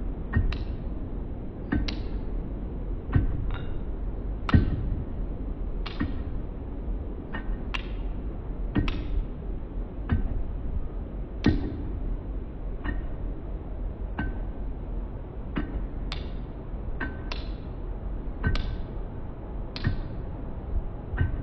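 Irregular sharp taps, often in close pairs, about one to two a second, some leaving a brief ringing tone, over a steady low rumble.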